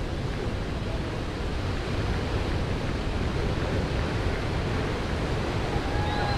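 Steady rush of whitewater from a huge breaking wave, with wind noise on the microphone.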